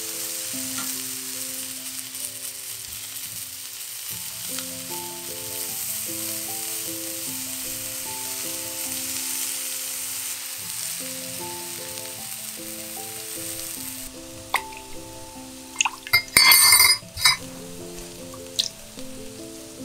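Chicken tsukune patties sizzling as they fry in an oiled frying pan. About two-thirds of the way in the sizzling stops, and a spoon clinks against a glass measuring cup as the sauce is stirred, loudest in a short run of clinks a couple of seconds later.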